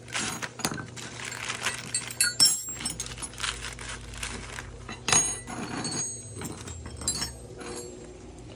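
Chrome-vanadium combination wrenches clinking and jangling against one another as they are handled and laid out on a concrete floor. There is a run of sharp metallic clicks throughout, the loudest about two and a half seconds and five seconds in.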